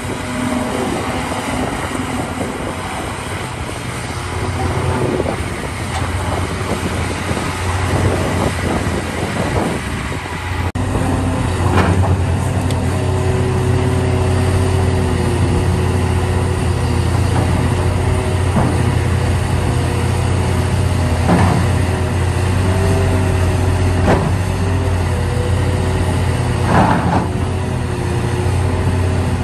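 Large excavator working: its diesel engine drones steadily under a few higher whining tones, getting louder about a third of the way in. A few short knocks land in the second half.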